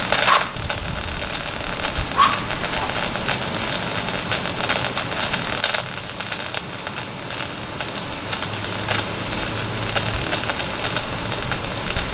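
Rain falling steadily, a dense crackling patter of drops.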